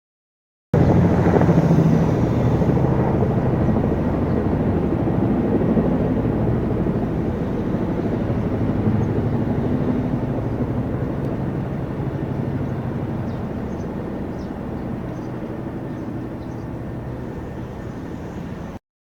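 Helicopter engine and rotor noise. It starts suddenly about a second in, is loudest at first, slowly fades away, and cuts off just before the end.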